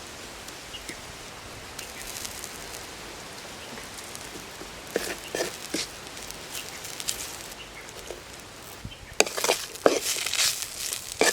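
Steady sizzle of food frying in a pan, with scattered clicks and then a run of loud clatter near the end from a utensil stirring against the pan.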